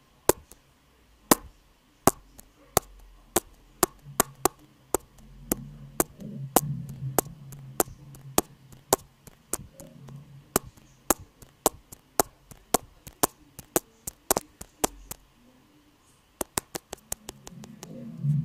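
Computer keyboard keys clicking one after another, about two to three sharp clicks a second, over a low hum that swells midway and again near the end.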